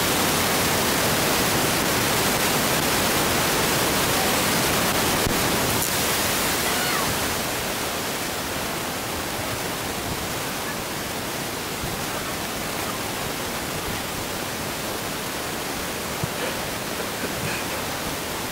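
Steady rushing noise of wind on the camera microphone, easing a little about seven seconds in.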